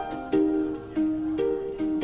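Background music: a light melody of plucked string notes, one after another every third to half second.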